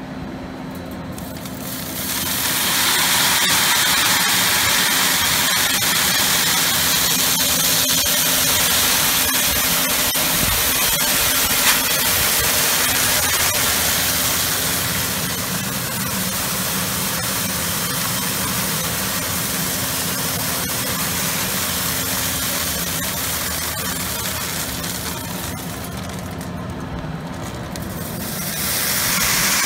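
Seed cleaner-grader running, its motor giving a steady hum under a loud hiss of seed pouring through the sieves and chutes. The hiss swells in about two seconds in as the feed lever opens the hopper, eases briefly near the end, then returns.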